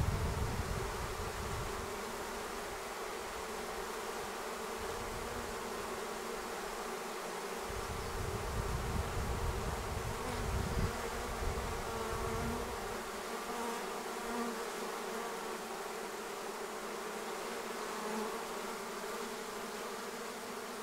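Swarm of honeybees buzzing, a steady hum of many bees. Low rumbles on the microphone come and go under it, at the start and again around the middle.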